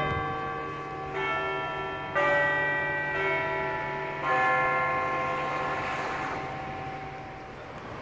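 Cathedral bells ringing: three strikes on different notes, about one, two and four seconds in, each left to ring on and slowly die away.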